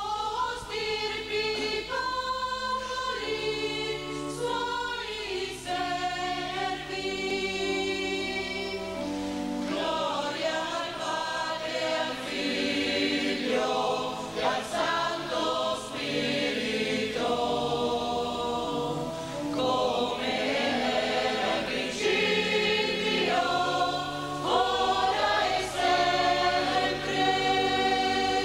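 Parish church choir singing sacred music at mass, in long held chords.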